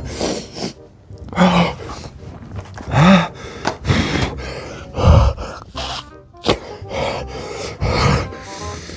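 A man's forceful, breathy exhales and gasps, repeated irregularly about once a second, with short groans about a second and a half in and again around three seconds: he is reacting to the burn of extremely spicy instant noodles.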